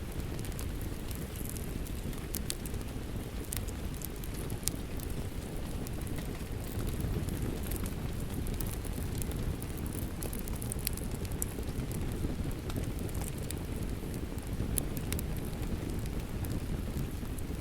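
Fireplace fire crackling with scattered sharp pops, over a steady low rush of rain.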